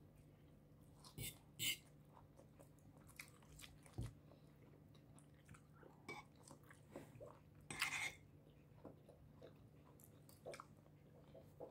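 A person chewing and biting food by hand close to the microphone, mostly quiet, with short crisp crunches: two about a second in, one around four seconds and a louder cluster near eight seconds.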